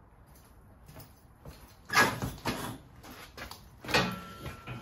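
Hand tools clattering as someone rummages for a wrench, with two sharp metallic clanks about two and four seconds in and lighter knocks between.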